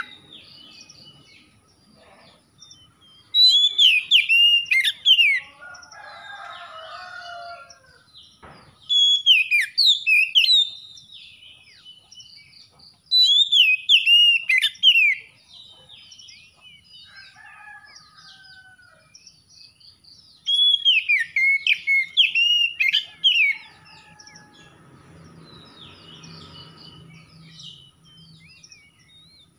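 Oriental magpie-robin (kacer) singing in four loud bursts of high, sweeping whistled phrases, each a couple of seconds long. Fainter, lower calls come between the bursts.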